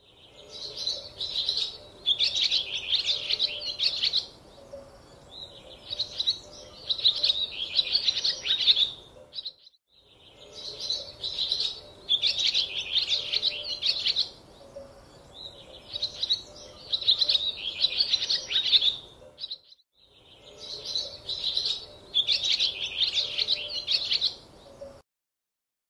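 Birds chirping and singing in quick, dense phrases. The same stretch of about ten seconds plays three times over, with a short silent break between repeats, and the last repeat is cut short.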